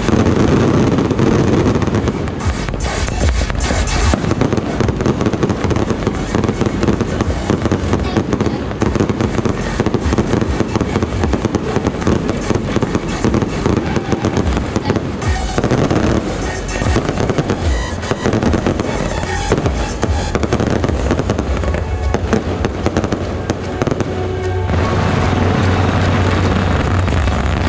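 Fireworks going off continuously: dense crackling from ground batteries shooting coloured smoke and sparks, with aerial shells bursting overhead. About 25 s in it turns into a steadier, heavier rush, with music playing underneath.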